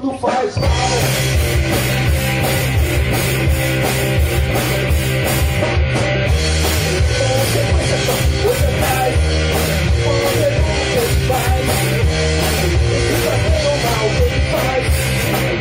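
Rock power trio playing live: electric guitar, electric bass and drum kit together, with only a short drop in level right at the start.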